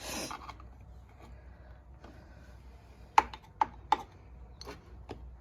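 Scattered light clicks and taps of hand tools on KX85 engine crankcase halves as they are pried apart little by little, three sharp ones close together a little past three seconds in.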